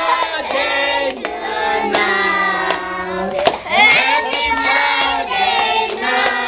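A group of children and adults singing together and clapping their hands in time with the song.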